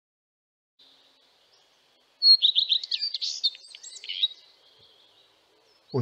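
Common redstart singing one song phrase about two seconds in: a quick series of repeated high notes, then a varied twittering ending.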